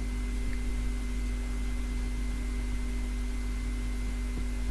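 Steady low electrical hum with constant hiss: the background noise of the recording setup, with no other sound in front of it.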